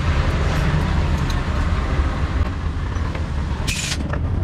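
Steady low rumble of traffic-like background noise, with faint clicks of small steel bolts and hand tools being handled on a concrete floor and a brief metallic clatter about three and a half seconds in.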